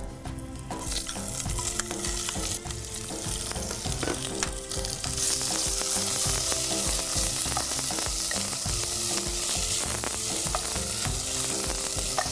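Sliced onion sizzling in hot tempering oil with curry leaves and dried red chillies in a pot, stirred with a spatula. The sizzle starts about a second in and grows louder about five seconds in.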